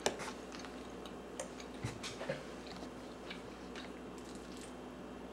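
Scattered soft clicks and taps, the sharpest right at the start, as a toddler eats with a plastic fork, over faint room hum.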